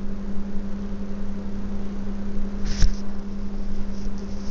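A steady low hum from a fan or appliance runs under a metal spoon stirring water in a hammered aluminium pot. About three seconds in there is one sharp metallic clink of the spoon against the pot.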